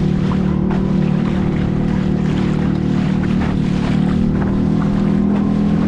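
A boat's engine running steadily with a low, even drone, under constant splashing water and wind noise.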